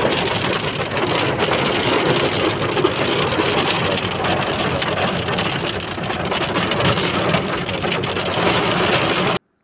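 Car driving in the rain, heard from inside the cabin: a steady rush of engine and wet-road noise with rain pattering on the windshield. It cuts off suddenly near the end.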